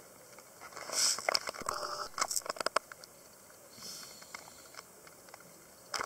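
Scuba diver's regulator breathing underwater: a hissing breath about a second in and another around four seconds in, with a run of crackles and clicks between them.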